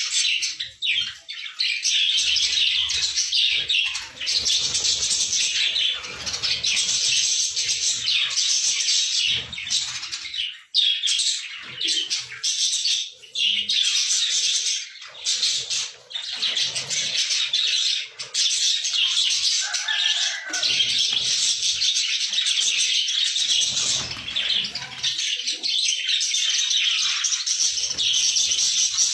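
Budgerigar chicks chirping in a dense, continuous high-pitched chorus.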